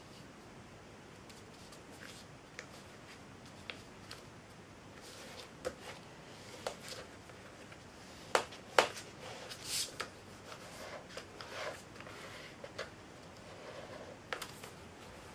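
A sheet of printer paper being folded and creased by hand: scattered crinkles, rustles and soft taps, with two sharper snaps a little past the middle.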